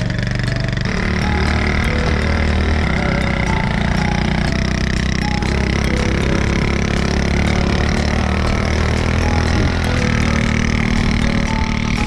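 Motorcycle running steadily as it is ridden, with a steady rushing noise over the engine.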